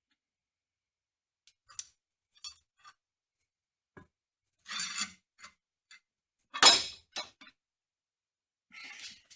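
Metal tools and parts being handled: a string of separate light clinks and rattles, with one sharper metal knock, the loudest, about two-thirds of the way through.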